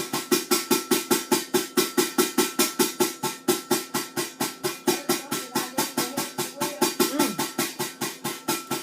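Rapid, even pulsing from outside, about five beats a second over a steady tone. The source is not known; she says she doesn't know what it is.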